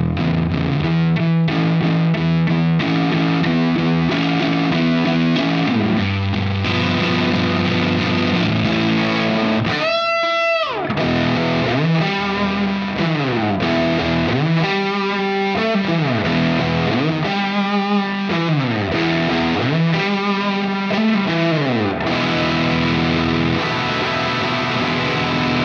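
James Tyler Studio Elite HD electric guitar played with distortion: a chugging chord riff, then a falling pitch dive about ten seconds in, followed by four swooping notes that bend up and back down.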